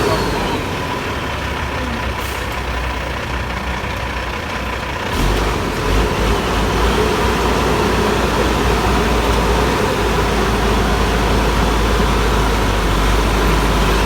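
Heavy diesel engines of bulldozers running with a steady low rumble, growing louder about five seconds in.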